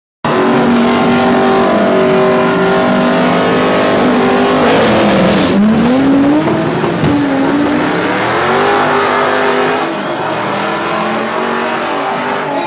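Drag-racing car engines held at high revs on the start line. About five seconds in the revs dip, then climb in a series of rising sweeps as the cars launch and accelerate away down the strip.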